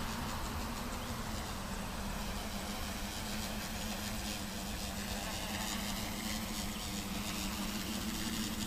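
Small electric quadcopter's motors and propellers buzzing in flight at a distance: a steady drone with a faint high whine that wavers a little in pitch as the craft moves about.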